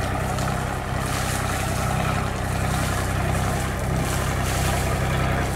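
Beta Marine 28 three-cylinder Kubota-based marine diesel running steadily.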